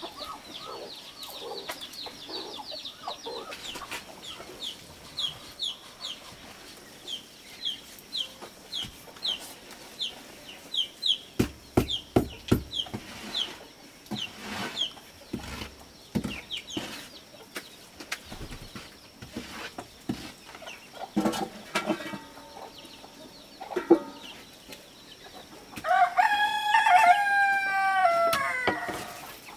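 Chickens clucking and peeping in short, high, repeated chirps, with a rooster crowing once near the end, a loud call of about three seconds that falls away at its close. A run of sharp knocks comes a little before the middle.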